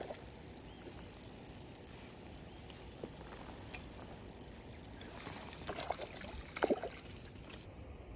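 Light spinning reel being cranked as a crankbait is retrieved through the water, over steady outdoor background noise. There are a couple of short splashes about two-thirds of the way through, the loudest sounds.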